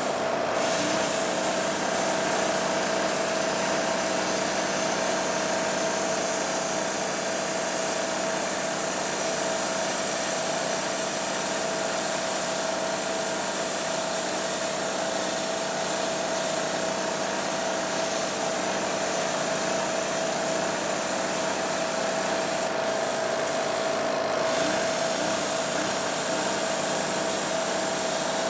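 Electric angle grinder running under load against the edge of a steel disc, a steady whine over a continuous hiss, easing briefly a little before the end.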